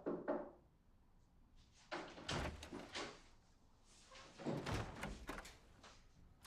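A door being opened and shut: a short click at the start, then two bouts of clunking about two and a half seconds apart.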